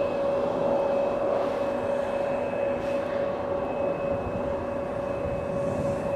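Jet aircraft engines running, a steady whine of two held tones over a broad rushing noise.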